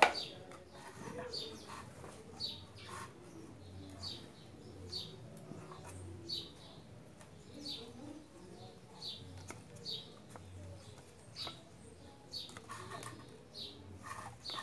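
A small bird chirping over and over, a short high chirp about once a second, with faint knocks from the wooden spool and line being handled.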